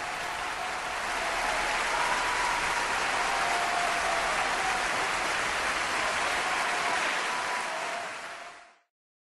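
Crowd applause that swells about a second in, holds steady, and fades out near the end.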